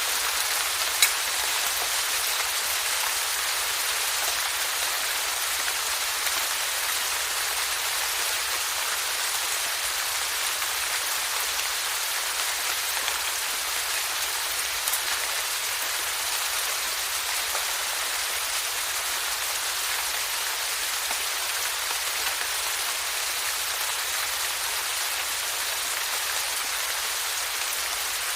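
Steady rainfall, an even, dense patter of drops with no let-up. A single sharp tick stands out about a second in, with a few fainter ones later.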